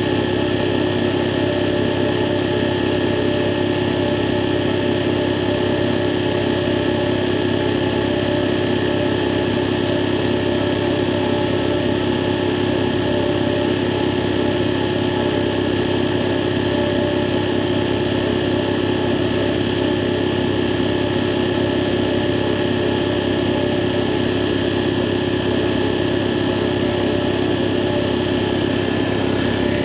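Porter Cable Jetstream air compressor's belt-driven cast-iron pump and electric motor running steadily, pumping up the tank on a test run after a new check valve was fitted.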